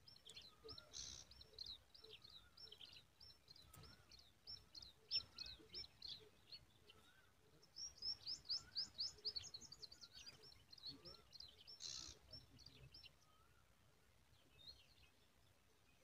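Baby birds in the nest chirping to beg for food: quick runs of short, high, thin chirps, busiest about halfway through and dying away near the end, with a lower wavering note repeating under them.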